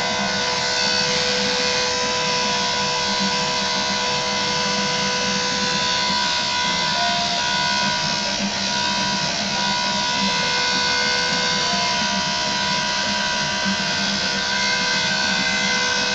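Electric pet hair clippers running steadily with a constant whine as they trim a dog's coat.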